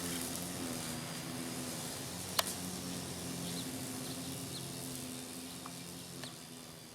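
Outdoor ambience: a steady low hum with a faint background hiss and a few faint clicks, fading slowly near the end.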